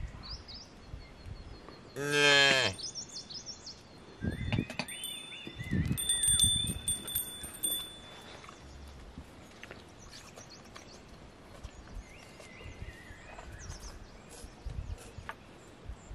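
A calf bawls once, a short call about two seconds in, with birds chirping around it and a few low knocks and rustles after it.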